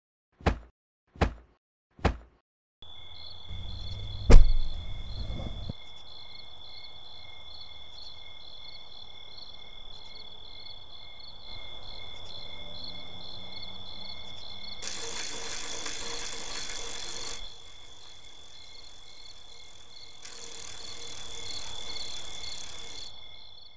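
Three short knocks, then crickets chirping steadily over a low background hiss, with one loud thud about four seconds in and two swells of louder hiss in the second half.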